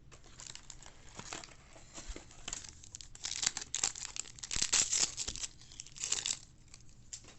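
Foil wrapper of a 2022 Topps baseball card pack being torn open and crinkled, in an irregular run of crackling that is loudest in the middle and dies away near the end.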